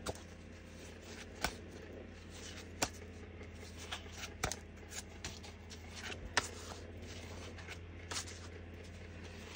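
Small diamond-painting craft pieces being handled and sorted into piles on a table: soft rustling with a scattering of sharper taps and clicks every second or so. A steady low hum runs underneath.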